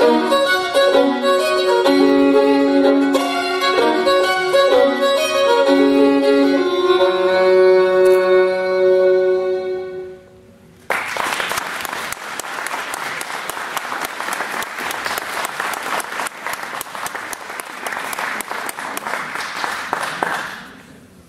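Fiddle with acoustic guitar playing the closing bars of an Irish-style jig, ending on a long held note that fades out about ten seconds in. Audience applause then breaks out suddenly and lasts about ten seconds before dying away.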